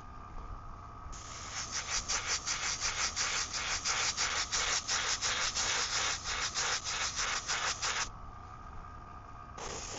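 Airbrush spraying paint: a hiss of air and atomised paint that pulses rapidly several times a second for about seven seconds, then stops, followed by a short steady burst near the end. A steady low hum runs underneath.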